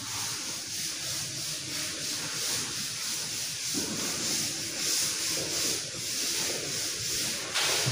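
Chalkboard duster wiping a blackboard clean of chalk writing: repeated back-and-forth rubbing strokes with a steady hiss.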